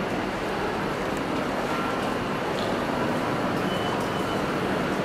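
Steady background hubbub of a large indoor railway station concourse, an even noise without any clear single event.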